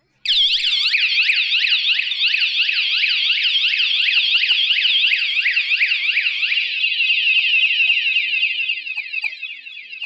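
KS-SF22R bike and motorcycle anti-theft alarm goes off suddenly with a loud, high siren warbling up and down about three times a second. After about seven seconds it switches to a faster, tighter warble, which turns quieter near the end.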